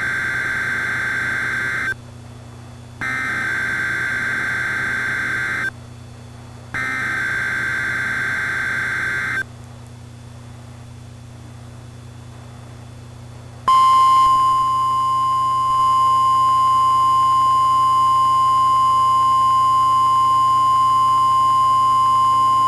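Weather-radio emergency alert signal: three raspy digital data bursts (SAME header) of about three seconds each with short gaps, then after a pause a long steady single-pitched warning alarm tone, which marks the start of a warning broadcast.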